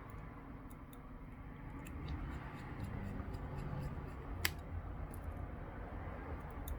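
Small screws being driven into a smartphone's frame with a precision screwdriver: faint scattered clicks over a low rumble of handling, with one sharper click about four and a half seconds in.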